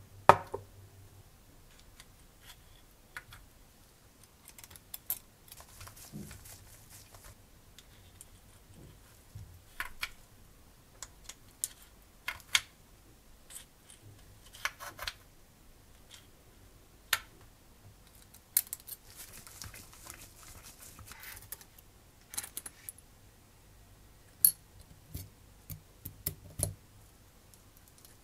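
Small metal parts of a 5-cylinder radial engine model kit clicking, clinking and scraping as they are handled and fitted together: irregular taps with a few sharper clicks, the sharpest at the very start.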